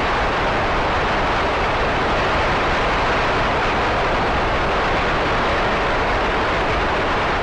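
Steady applause from a packed assembly hall, heard through the hiss of an old newsreel soundtrack.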